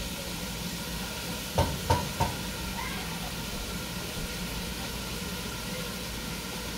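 A wooden spoon knocks three times in quick succession against a stainless-steel pan, and the pan rings briefly with each knock. Underneath is a steady sizzle of onion and garlic frying.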